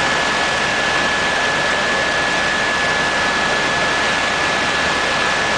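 Steady engine and airflow noise inside a small aircraft's cabin in flight, with a constant high-pitched whine running through it.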